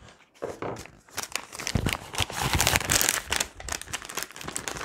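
Plastic MRE flameless ration heater sleeve and pouch packaging crinkling and rustling as it is handled, a dense run of irregular crackles.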